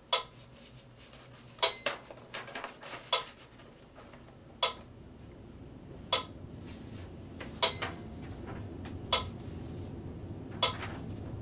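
Metronome clicking at 40 beats per minute, one click every second and a half, in 4/4 time: every fourth click is a brighter accented click with a short ringing tone, marking the first beat of the bar.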